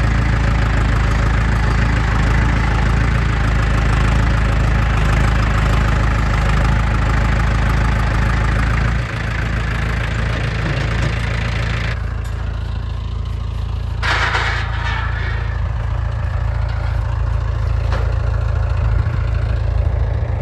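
Farm tractor engine running steadily with a strong low rumble; it drops in level about nine seconds in and settles lower again about twelve seconds in, with a short hissing burst around fourteen seconds.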